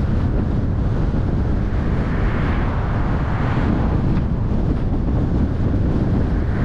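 Wind buffeting the microphone during a drive: a loud, steady low rumble with a hissing swell about two to four seconds in.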